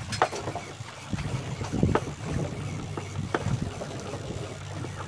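Fishing boat's engine running with a steady low hum, with wind on the microphone and short irregular swishes and knocks over it.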